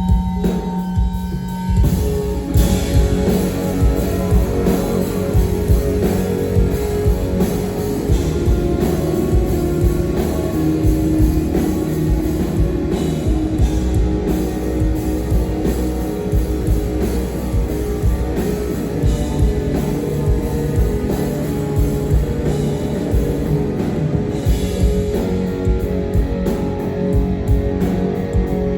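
Rock band playing live, with electric guitar and drum kit; the full band comes in about two seconds in after a sparser guitar passage.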